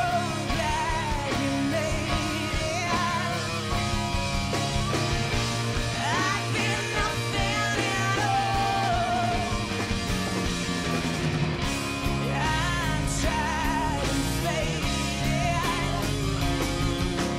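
Live rock band playing, with drums, bass and electric guitar, and a woman singing over them.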